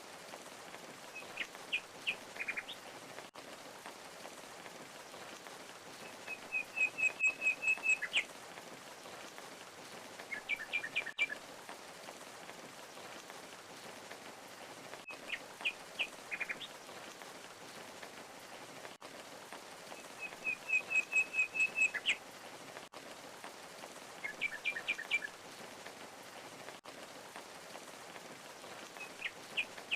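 Birds chirping in short phrases over the steady rush of a waterfall. One phrase is a fast trill of about eight even notes. The same run of calls comes round again about every 14 seconds.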